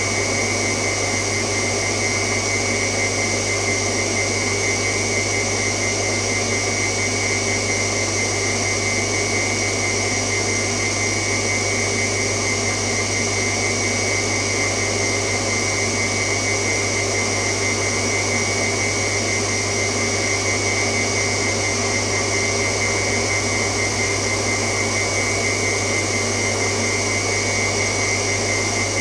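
Washing machine running: a steady, unchanging motor hum with a high whine over it.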